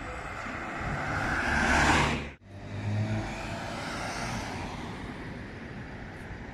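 Road traffic: a vehicle passing close, its tyre and engine noise rising to a peak about two seconds in and cutting off suddenly. Then a car passes with a low engine hum, followed by steady traffic noise.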